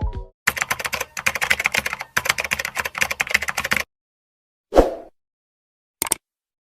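Keyboard typing sound effect: rapid key clicks for about three and a half seconds, then silence broken by a short soft pop about a second later and a single brief click near the end.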